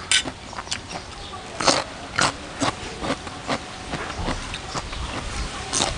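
Close-miked chewing of crisp raw cucumber, with irregular wet crunches and a few louder bites standing out.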